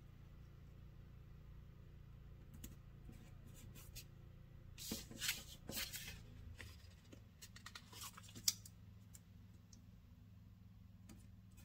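Faint paper handling: short rustles and clicks as fingertips press a sticker onto a planner page and the page is lifted and moved, busiest midway, with one sharper click about eight seconds in, over a low steady room hum.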